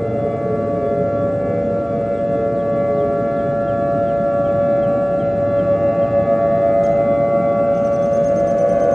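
Outdoor civil-defence warning siren wailing, holding a nearly steady pitch, then starting to fall in pitch right at the end.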